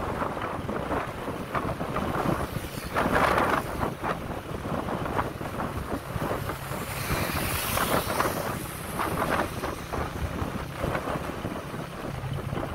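Wind buffeting the microphone on a moving motorbike, rising and falling in gusts, with engine and road noise underneath.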